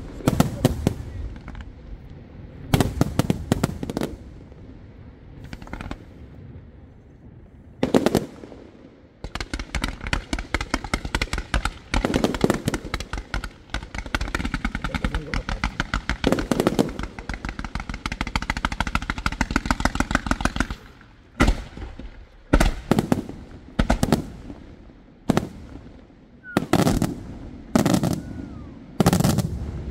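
Aerial fireworks display: shell bursts go off as separate bangs, then from about nine seconds in a rapid, dense barrage of cracks runs for about twelve seconds. Near the end come single loud bangs about a second apart.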